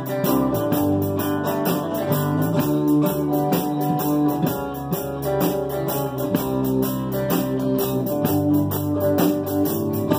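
Live band playing: strummed acoustic guitars over bass guitar, with a steady beat of about three strokes a second.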